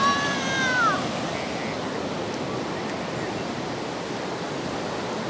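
Surf breaking and washing up the beach, a steady rush throughout. In the first second a person gives a high-pitched call that drops in pitch as it ends.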